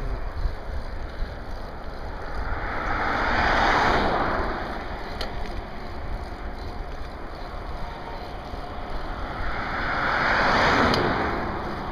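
Wind buffeting the microphone on a moving bicycle, with two vehicles passing on the road, each swelling and fading, about three and a half seconds in and again near the end.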